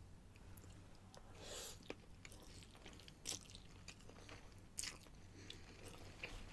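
A person chewing a mouthful of pasta, faint, with a few sharp wet clicks and smacks of the mouth.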